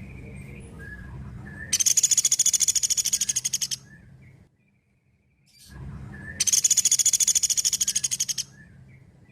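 Pelatuk beras (a small woodpecker) calling: two loud, high-pitched, very fast rattling trills of about two seconds each, the first about two seconds in and the second about six and a half seconds in, with a few faint short chirps between over a low background hum.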